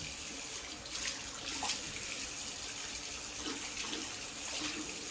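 Bathroom sink tap running into the basin while bare hands scrub and rinse it, a steady rush of water with a couple of small splashes.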